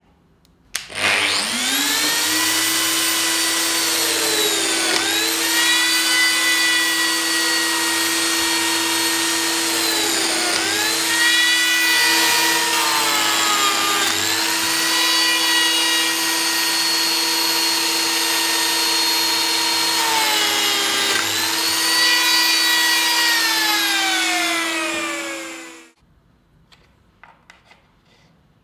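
Lamello Zeta P2 joiner's motor running loud and high, its pitch sagging and recovering four times as the cutter takes the load of milling P-System grooves, then stopping abruptly near the end. A few light clicks follow.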